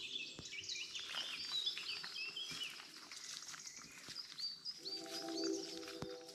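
Several woodland birds singing and chirping together, a dense chorus of quick high notes and short phrases. Soft, held music tones come in about five seconds in.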